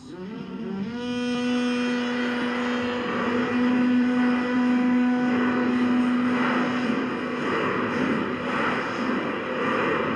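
A long, deep horn blast from a film soundtrack, played through laptop speakers. The note slides up at the start and holds steady for about six seconds, then fades under a swelling rush of noise.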